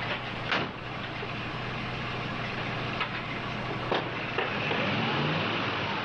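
A patrol car door slams shut about half a second in, followed by a few light clicks. Then the car's engine starts and runs, rising in pitch briefly.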